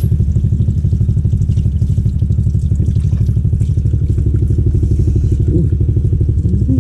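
Motor-driven compressor running steadily with a fast, even pulse.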